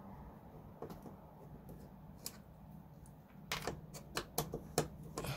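Small plastic and metal clicks and taps from a hex driver being fitted to small screws on an RC rock crawler's chassis. There are a few single clicks at first, then a quick scattered run of them in the last two seconds.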